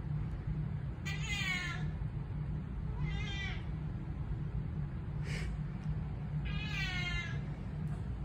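Domestic cat meowing four times, about two seconds apart. The calls are drawn-out and fall in pitch, and the third is shorter and fainter than the rest.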